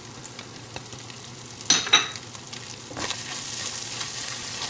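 Shredded carne de sol sizzling in a hot pot with butter, onion and garlic, just seasoned with paprika and crushed red pepper. A couple of sharp knocks come a little under halfway, then stirring with a wooden spoon makes the sizzle louder from a bit past the middle.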